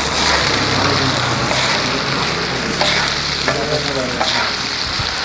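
Deep-frying sizzle of fish kabab in hot oil: a steady hiss with a few light crackles, over a steady low hum.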